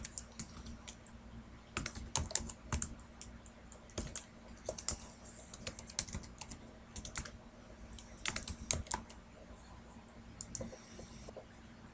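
Typing on a computer keyboard: irregular runs of key clicks that thin out near the end.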